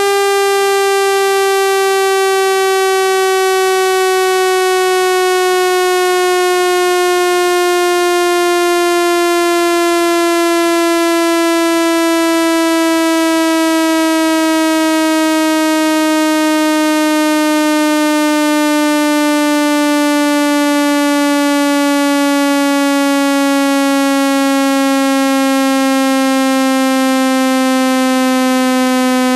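Speaker-cleaning frequency sweep: a single loud, buzzy electronic tone with many overtones, falling slowly and steadily in pitch. It is the kind of tone played through a phone speaker to shake water and dust out of the grille.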